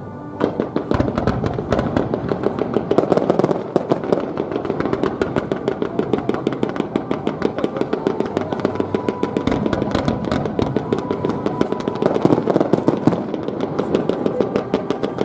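Fireworks crackling in a dense, rapid stream of small pops that starts about half a second in and keeps going without a break.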